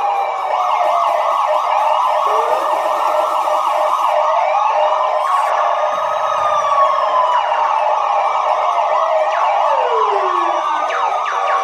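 Several police sirens sounding at once: slow rising and falling wails overlapping each other over a fast warble. It cuts off abruptly at the end.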